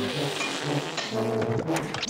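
Cartoon music with a tuba playing short, detached low notes, then a louder held brass chord about a second in.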